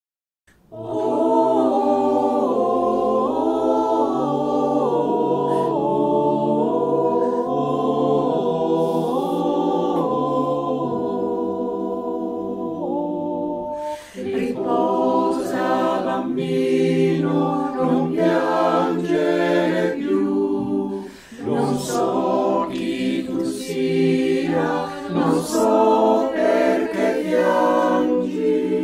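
Mixed choir of men's and women's voices singing a cappella in parts, the voices recorded separately and mixed as a virtual choir. It starts less than a second in with long held chords, dips briefly about halfway, then moves into shorter phrases with a short break about two-thirds through.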